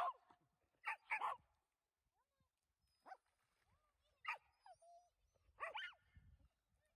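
Australian cattle dog giving a string of short, high yips and barks, about six in all, irregularly spaced with quiet gaps between them.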